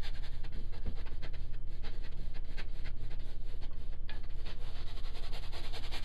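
Paintbrush scrubbing very dry, thick oil paint onto canvas in rapid short strokes, a steady run of rubbing sounds with brief pauses between passes.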